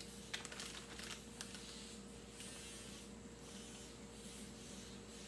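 Steady low electrical hum, with a few light crinkles and clicks of a plastic zip-top bag and sticker label being handled in the first second and a half, then faint strokes of a marker writing on the label.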